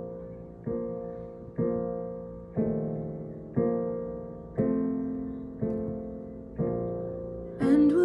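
Instrumental accompaniment: a chord struck about once a second, each one ringing out and fading, in a slow song. A woman's singing voice comes back in near the end.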